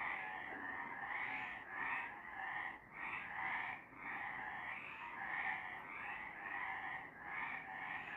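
A chorus of several frogs calling at night, overlapping croaks repeating about once or twice a second without a break.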